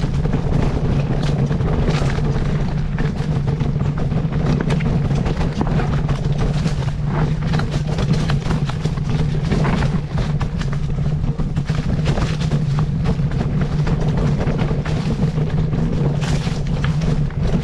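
An engine running steadily at constant speed, a continuous low drone with rushing noise over it.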